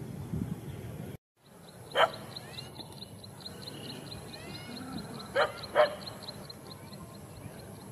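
Dog barking: three sharp barks, one about two seconds in and two in quick succession later. The sound drops out briefly just after a second in, and a fast, high ticking runs in the background.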